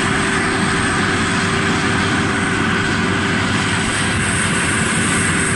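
Diesel engines of rice combine harvesters running at a steady working speed, a constant loud drone with one held tone in it.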